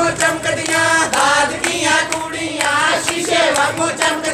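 A group of women singing a Punjabi folk song together, with hand claps mixed in.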